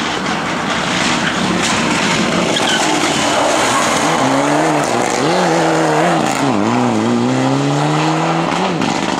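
Rally car at full speed on a stage. First there is a spread of tyre and gravel noise. Then a Mitsubishi Lancer Evolution's turbocharged four-cylinder engine revs up and down through the corner and rises steadily in pitch as it accelerates away.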